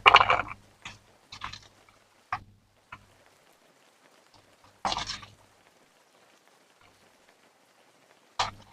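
Short, separate kitchen handling noises, scrapes and knocks of utensils or dishes, with quiet gaps between. The loudest is at the very start and another comes about five seconds in.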